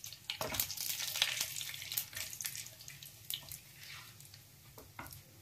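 Whole spices (cumin seeds, bay leaf, cinnamon, cardamom, peppercorns) sizzling and crackling in hot mustard oil in a non-stick kadhai as a wooden spatula stirs them. The crackles come thick for the first two or three seconds, then thin out.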